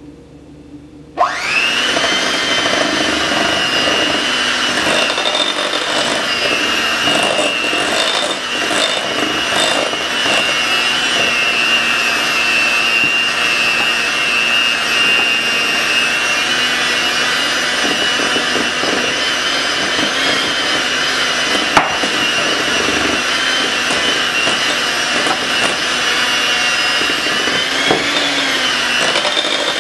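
Electric hand mixer switched on about a second in and running steadily with a high motor whine, its beaters whipping powdered sugar into cream cheese and butter frosting. One sharp click past the middle.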